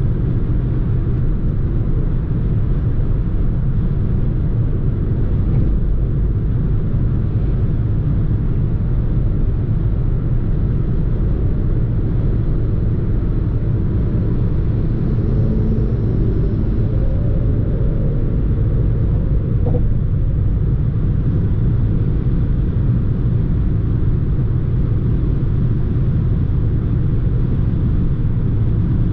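Steady in-cabin cruising drone of a Citroën C4 at motorway speed: low tyre and road rumble mixed with wind noise and its 1.2 PureTech three-cylinder turbo petrol engine running.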